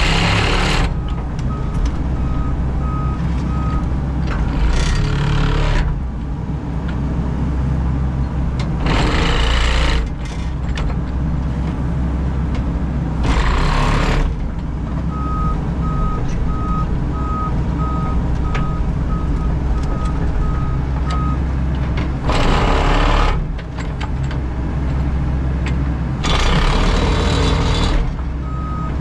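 Excavator's diesel engine running steadily, heard from inside the cab, with loud rushing surges about a second long, six times, as the machine works a compaction lift in the trench. A reversing alarm beeps about twice a second in three stretches: near the start, in the middle and at the very end.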